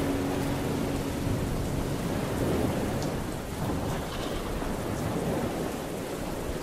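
Steady rain with a low rumble of thunder underneath.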